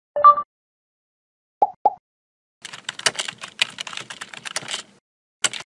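Computer keyboard typing sound effect: about two seconds of rapid, irregular key clicks. Before it come a short tone at the very start and two short blips; a single click follows near the end.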